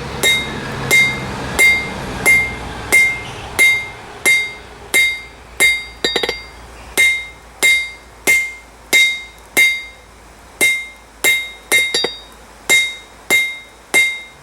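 Hammer blows on hot half-inch round steel stock on a Peter Wright anvil, flattening it: about twenty strikes at a steady pace of roughly one and a half a second, each with a bright ringing note from the anvil. About six seconds in comes a quick flurry of lighter taps.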